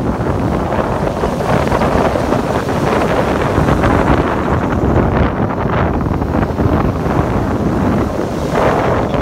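Ocean surf breaking and washing up the sand at the water's edge, with wind buffeting the microphone.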